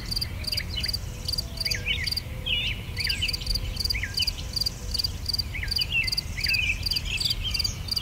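Outdoor ambience of crickets chirping steadily at about three chirps a second, with other scattered high chirping calls and a low rumble of background noise underneath.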